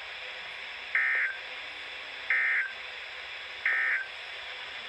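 Emergency Alert System end-of-message code sent over a weather radio broadcast: three short digital data bursts about a second and a half apart over a steady radio hiss, closing the severe thunderstorm warning.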